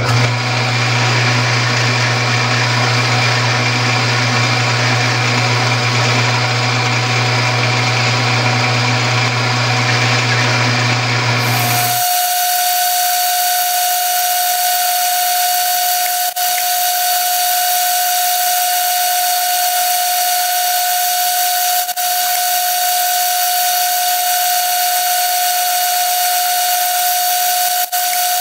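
Metal lathe running while a twist drill in the tailstock bores into hard steel hex stock. First a steady low hum with machine noise, then about twelve seconds in the sound switches abruptly to a steady high whine.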